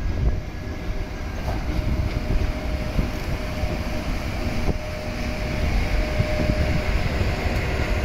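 EF81 electric locomotive running light, rolling slowly past close by. Its wheels and running gear make a steady low rumble on the rails, with a few clicks, and there is a faint steady whine from the locomotive.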